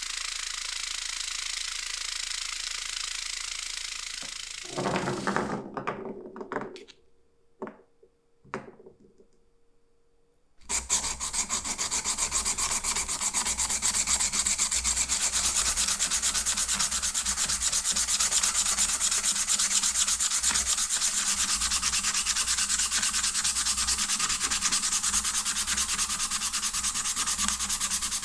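A vibratory tumbler runs steadily with its plastic media for about four seconds, then stops. After a few short handling sounds and a brief quiet, a wooden tool handle is sanded by hand on sandpaper: a loud, even, fast rubbing that continues.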